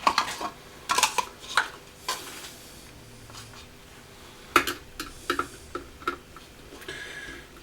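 Metal screwdrivers and small tools clinking and clattering on a workbench as they are picked up and handled, with a handful of sharp clicks and a couple of short rustles.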